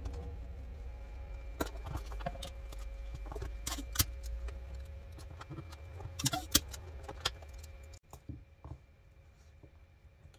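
Hands handling a hardcover journal and sheet of sublimation paper: scattered light taps, rustles and a few sharp clicks, the loudest about four and six seconds in. A low background hum stops abruptly about eight seconds in.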